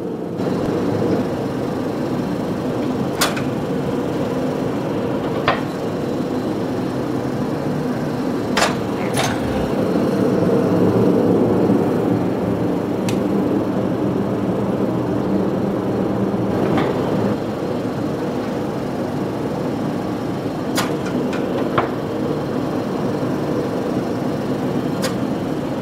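Motor-driven rolling mill running steadily as a hot Damascus steel billet is rolled down, with sharp metallic clanks of steel and tongs every few seconds.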